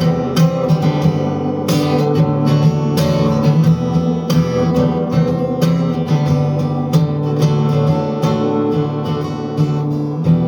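Acoustic guitar strummed in a steady rhythm, playing an instrumental passage with no singing.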